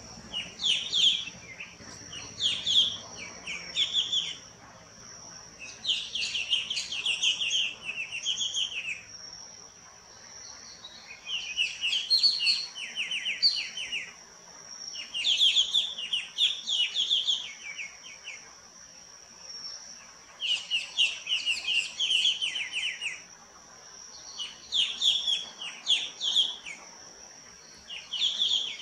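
Square-tailed bulbul calling: about six bursts of rapid, high-pitched chattering notes, each a few seconds long, with short pauses between. A steady high whine runs underneath.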